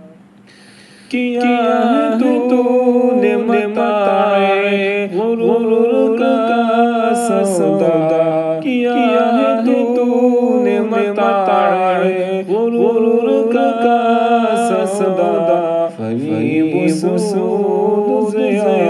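A single voice singing an Urdu hamd, a devotional Islamic song, in long ornamented melodic lines without instrumental accompaniment. The singing begins about a second in, after a short pause.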